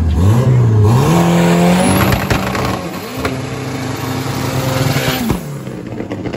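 Drag car's engine revving hard on the start line. It climbs and holds a high, steady pitch, with a few sharp cracks about two seconds in. Near the end the revs drop suddenly as the car launches.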